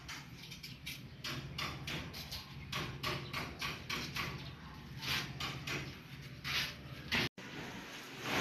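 Irregular knocks and scrapes of timber stair formwork being handled and fitted, over a steady low hum. The sound drops out for a moment near the end.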